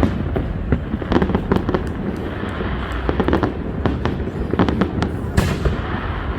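Fireworks display: a dense run of sharp pops and crackles over a continuous low rumble.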